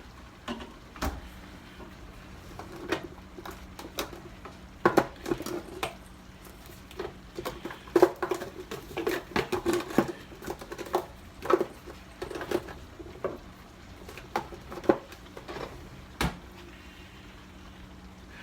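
Dishes and kitchen utensils being handled and put away: irregular clinks and knocks of crockery and cutlery, busiest in the middle, over a faint steady hum.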